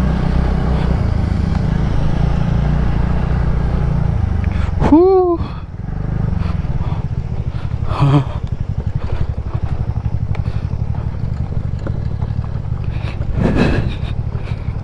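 A TVS NTORQ 125 scooter's single-cylinder four-stroke engine running steadily under way on a rough track. A brief loud shout comes about five seconds in.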